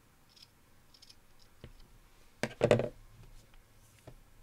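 Scissors cutting through the backing fabric at the corner of a hooked rug: a few faint snips and clicks, then a louder quick double snip about two and a half seconds in.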